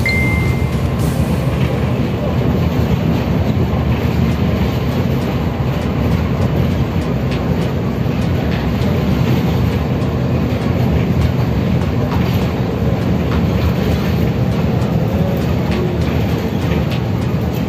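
Steady rumble of road and engine noise inside a moving vehicle travelling on a highway, with a brief high beep right at the start.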